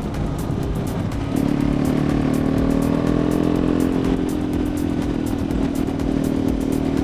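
KTM motorcycle engine running under way, with a steady pitched drone that steps up in level about a second in.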